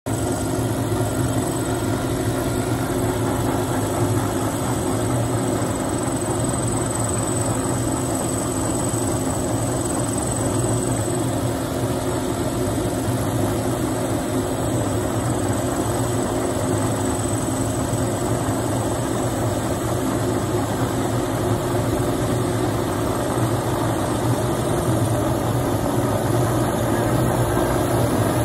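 Helicopter running at idle on its landing pad: a steady engine hum with a thin high whine.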